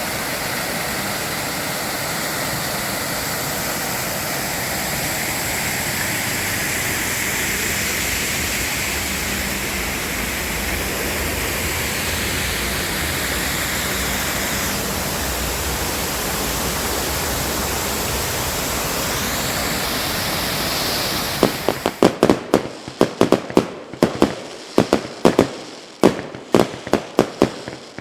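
A steady rushing noise, then about three-quarters of the way through a rapid, irregular string of sharp cracks and pops, like firecrackers going off.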